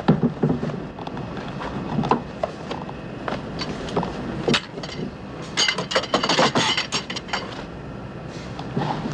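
Scattered knocks, bumps and cloth rustling as a man wrestles with his clothing in a cramped aircraft lavatory, with a flurry of rapid knocks and rustles a little past the middle. A low steady aircraft cabin drone runs underneath.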